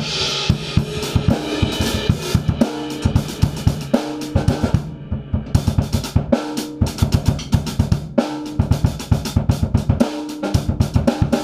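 Drum kit played steadily: kick, snare, hi-hat and cymbals in a continuous beat. The cymbals drop out briefly about five seconds in.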